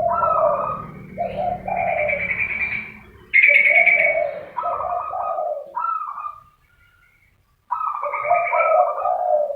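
Zebra dove and spotted dove calling: phrases of repeated coos with higher chirping notes over them, breaking off for about a second two-thirds of the way through before starting again. It is a dove-call recording used to lure birds.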